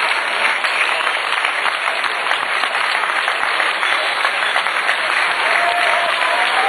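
Crowd applauding steadily, a dense, even clapping.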